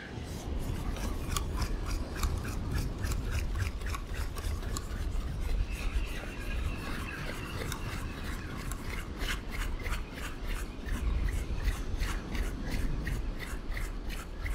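Large fixed-spool surf reel being cranked, its gears ticking rapidly as line is wound in: about three ticks a second at first, quicker later on. Under it, a low rumble of wind and surf.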